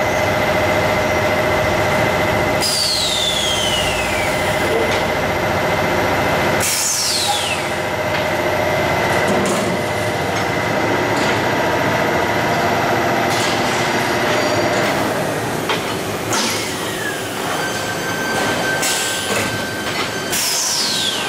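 Automatic air duct production line machinery running with a steady hum, broken four times by a high-pitched whine that falls in pitch.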